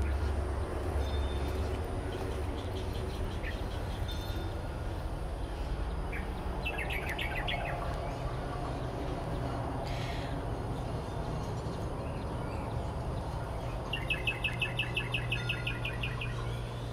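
A bird calling outdoors in short runs of quick chirps: a brief cluster about seven seconds in and a louder, fast evenly spaced series near the end, over a steady low rumble.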